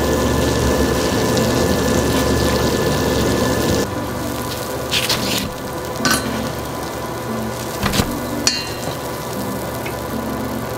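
Beignet dough deep-frying in hot oil: a steady sizzle over a low hum. About four seconds in it drops away, leaving a few light clicks and taps.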